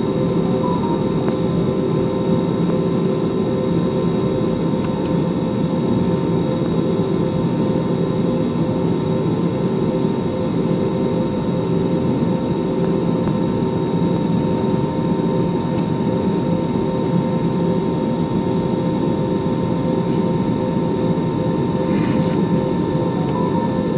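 Jet airliner's turbofan engines at idle heard inside the cabin: a steady hum and rush with a few fixed whining tones, as the aircraft waits by the runway before takeoff. A brief faint noise near the end.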